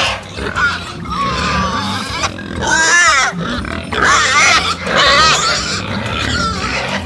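Pigs squealing and grunting, with several loud high squeals about three seconds in and again around four to five seconds.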